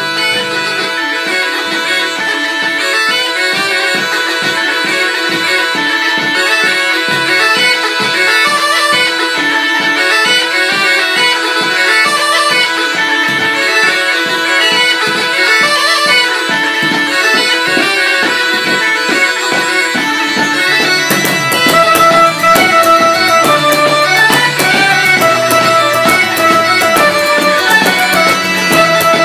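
Scottish and Estonian bagpipes playing a tune together over a steady drone. About 21 seconds in, the music thickens as lower parts and a quick percussive beat join in.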